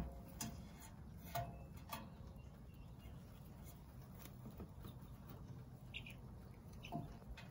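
Young chicks resting in straw, giving a few faint, scattered peeps and short chirps, among several light ticks.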